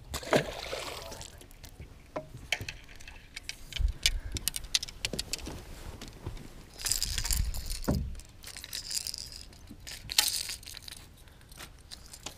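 Fishing gear being handled in a boat: scattered clicks, small knocks and rustling, with a few louder rustling stretches.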